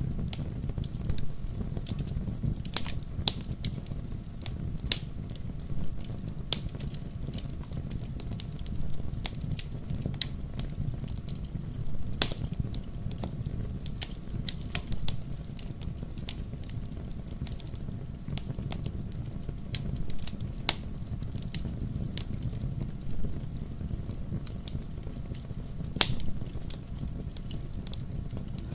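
Wood bonfire burning: irregular sharp crackles and pops over a steady low rumble, with a couple of louder pops.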